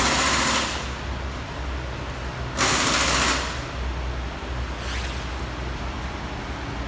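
Repair-shop background noise: a steady low hum, with two short bursts of hissing noise, one at the start and one about two and a half seconds in.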